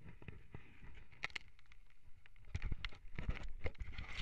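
Mountain bike jolting over a rough, wet trail: a rapid, irregular run of knocks and rattles over a low rumble and hiss, with the hardest knocks in the second half.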